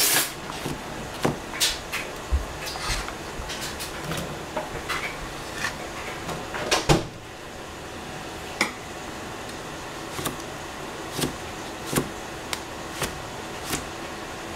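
Cleaver chopping cucumber on a plastic cutting board: a run of quick, irregular knocks, the loudest about seven seconds in, then slower chops about one a second.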